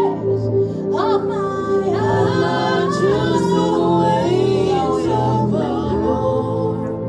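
Worship music: wordless singing, the voices sliding up and down in pitch, over a steady held note.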